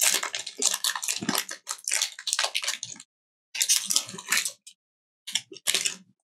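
A foil Pokémon booster pack crinkling and rustling with the cards as it is handled and opened: a quick run of short crackles, a pause, then two more short bursts.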